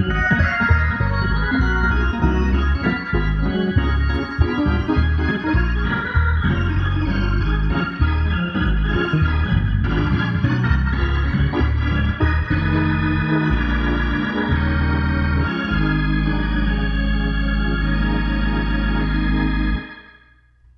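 Two-manual organ played with full sustained chords over quickly changing bass notes. It settles into one long held chord for the last few seconds, which cuts off abruptly about a second before the end.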